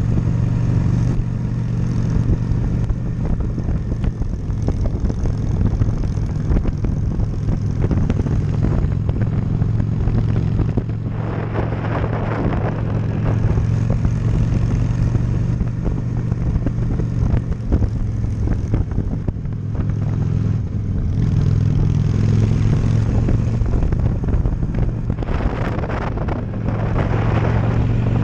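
Honda Shadow cruiser's V-twin engine running steadily while riding at an even pace. A rushing noise swells up twice, about twelve seconds in and again near the end.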